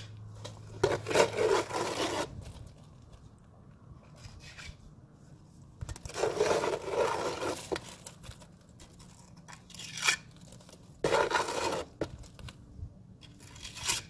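Mason's trowel scraping and spreading mortar on concrete block, packing a joint: several scrapes of a second or two each, with short pauses between.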